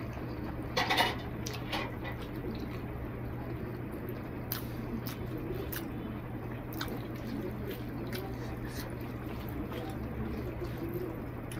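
Wet eating sounds: a hand squishing rice and egg curry on a plate and the mouth chewing, with scattered sharp wet clicks, the loudest cluster about a second in.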